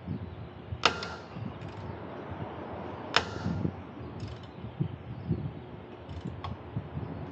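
Two sharp metal-on-metal strikes about two seconds apart, each ringing briefly, during suspension work on the front lower control arm. A lighter click comes near the end, with scattered dull knocks of tools being handled.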